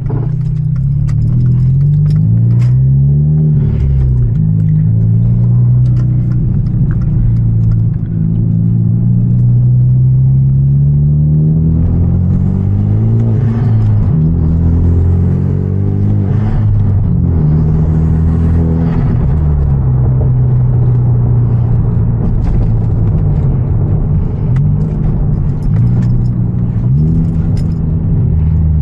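Hyundai Genesis Coupe 2.0T's turbocharged four-cylinder engine driving through a manual gearbox. The engine note climbs in pitch several times and drops back at each gear change, with steady cruising stretches in between.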